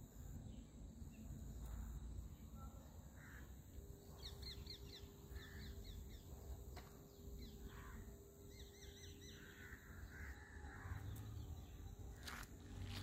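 Faint bird calls: a few harsher calls and two short runs of quick, high repeated chirps, about four and nine seconds in, over a low steady outdoor rumble.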